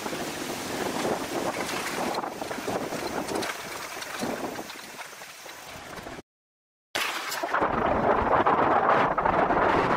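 Wind rushing over the microphone of a camera on a moving bicycle, mixed with the rumble of the ride over a bumpy forest dirt track. About six seconds in the sound cuts out completely for under a second, then comes back louder as the bike rolls on along a paved path.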